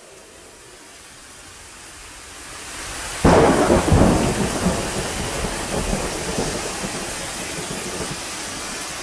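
Thunderstorm: rain hiss building steadily, then a sudden loud thunderclap about three seconds in that rumbles off into steady heavy rain.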